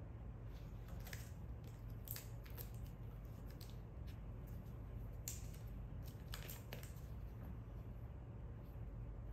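Faint crinkling and small clicks of a thin plastic jar lid being handled and flexed in the fingers, a few scattered times, over a low steady room hum.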